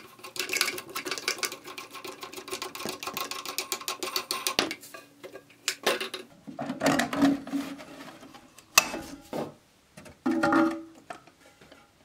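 Plastic lock nut being spun off the threaded shank of a toilet fill valve, a quick run of rapid rattling clicks, followed by a few separate knocks and scrapes of plastic parts being handled.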